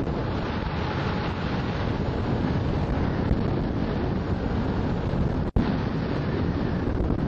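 Steady rush of strong wind, about 18–20 knots, buffeting the microphone of a hang glider in flight. The sound cuts out for an instant about five and a half seconds in.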